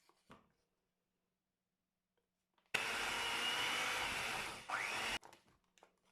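A small electric motor appliance switches on abruptly about two and a half seconds in and runs loudly for about two and a half seconds. Near the end it briefly drops, then picks up again with a rising whine and cuts off suddenly.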